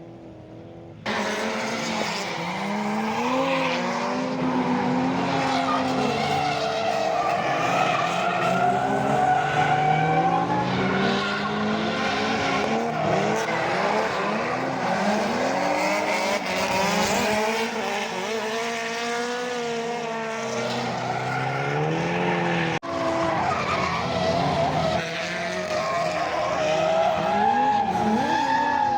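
Drift cars sliding around a track: several engines revving hard and easing off in overlapping swoops, with tyres squealing. The sound starts abruptly about a second in, and there is a sudden cut about three-quarters of the way through.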